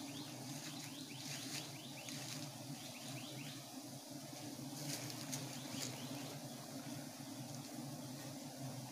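Giant honey bees (Apis dorsata) humming steadily, with runs of quick falling chirps above the hum and leaves rustling.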